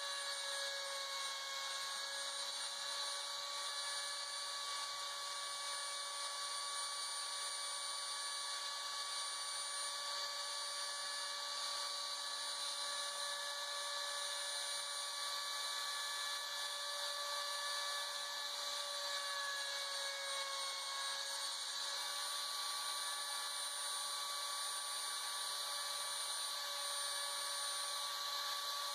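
Homemade CNC router milling a plastic sheet: the spindle motor runs with a steady high whine, and under it the stepper motors hum in low tones that jump between a few pitches every few seconds as the axes move.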